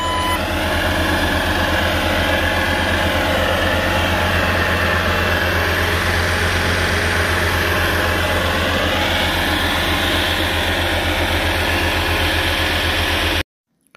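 Bobcat T650 compact track loader's diesel engine running steadily, with a strong low hum. It cuts off abruptly near the end.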